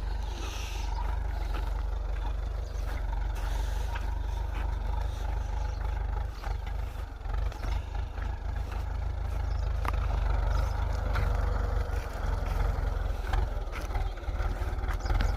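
Old Kubota 80-30 tractor's diesel engine running steadily, with a strong low rumble and a few light clicks and knocks.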